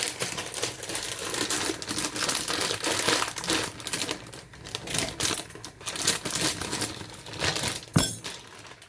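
Plastic pasta packet crinkling and rustling in crackly, irregular bursts, with a sharp click near the end.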